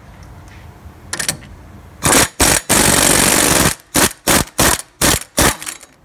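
Impact wrench hammering at the front axle nut of a Subaru Legacy hub to loosen it. A brief burst comes about a second in, then two short bursts, a run of about a second, and five short bursts in quick succession.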